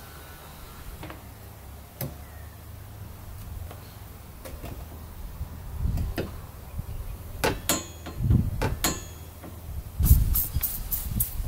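Glass window panes being worked on and cleaned by hand: scattered knocks and clicks against the glass and frame over a low steady hum, then near the end a quick run of about six squirts from a trigger spray bottle.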